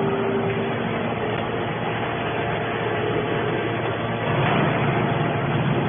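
Hydraulic scrap metal baler running: a steady, dense machine noise with a faint hum from its motor and pump, growing louder about four and a half seconds in.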